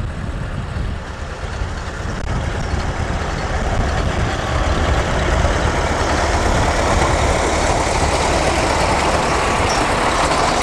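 Tractor engine running, nearly buried under heavy wind buffeting the microphone in a gale. The noise grows a little louder over the first few seconds, then holds.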